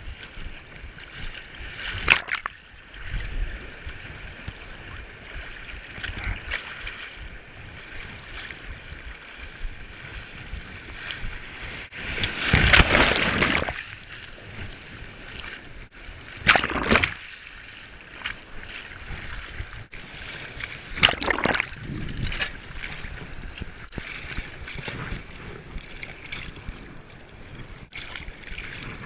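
Ocean waves washing and splashing against the shore, with a few louder surges, the strongest about halfway through.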